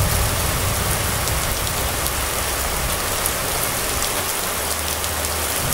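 Steady rain falling on a wet road and roofs: an even hiss with scattered faint drop ticks. A low rumble fades out about two seconds in.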